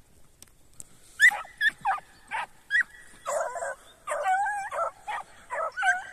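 A pack of hare-hunting dogs giving tongue as they run, a string of about a dozen short, high yelps, some sliding up or down in pitch, beginning about a second in. This is the cry of hounds working a hare's trail.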